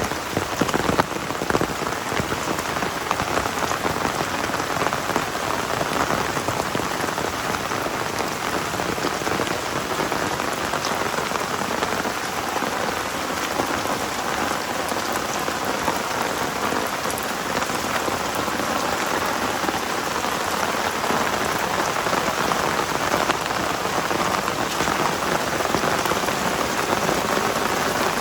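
Heavy rain falling steadily: a dense, even hiss of drops, with a few sharper patters in the first couple of seconds.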